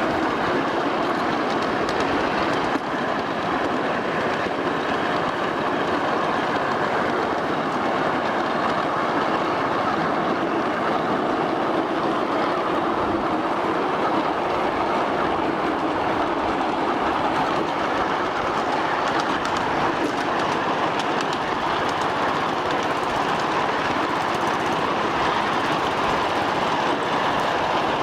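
A 1/8-scale ride-on miniature railway train running along its track, with a steady, even rolling noise of the wheels on the rails.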